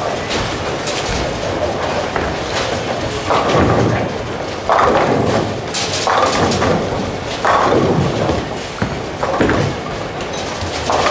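Bowling-alley din in a large hall: balls rolling and crashing into pins on many lanes, giving a run of irregular thuds and clatters.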